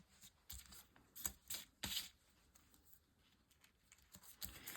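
Faint, brief rustles and taps of paper being handled and double-sided tape being applied to a journal page: a few separate strokes in the first two seconds, scattered light ticks, and a short cluster near the end.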